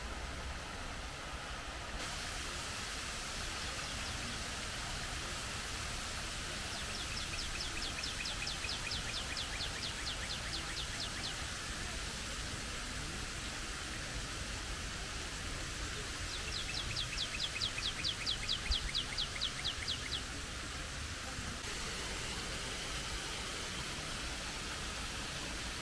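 Steady rushing hiss of a fountain's water jet, with a bird singing a rapid trill of repeated high notes twice, each lasting about four seconds, the second louder.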